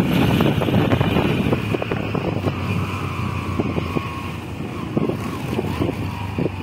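Steady engine and road noise of a moving vehicle, heard from on board, with a faint whine rising and fading around the middle.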